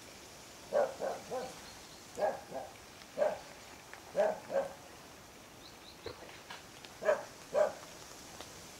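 A dog barking: about ten short barks in groups of two or three, with a pause of a couple of seconds past the middle.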